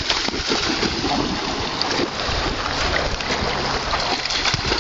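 Steady rush of flowing river water, with wind buffeting the microphone and making an uneven low rumble.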